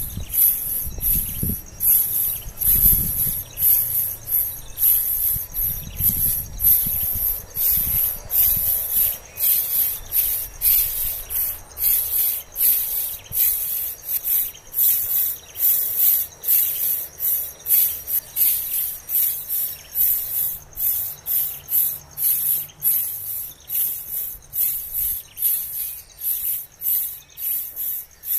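Insects calling in a loud, high-pitched pulsing chorus, about two pulses a second, with a faint steady high whine beneath. Low rumbling bumps, like wind on the microphone, come and go during the first few seconds.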